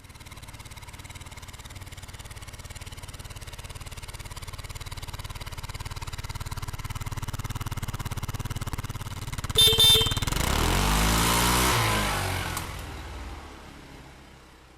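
A Honda Navi's small single-cylinder engine running as the bike rides closer, getting slowly louder. A brief high beep comes about ten seconds in, then the engine passes by and fades away.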